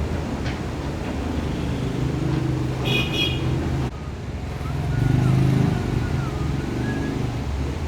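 Motor vehicle engines running in road traffic, with a short horn toot about three seconds in and the engine noise swelling a little past the middle.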